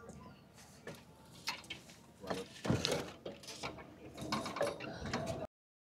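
Irregular mechanical clicks and knocks, a few louder clatters among them, cutting off abruptly near the end.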